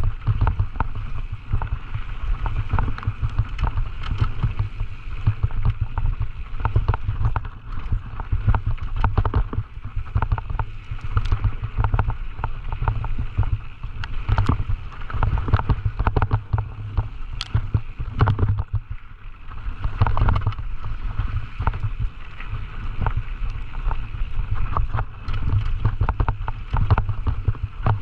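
Scott Gambler downhill mountain bike ridden fast down a rough trail: heavy wind buffeting on the microphone under a constant run of irregular clatters and knocks from the bike over the bumps.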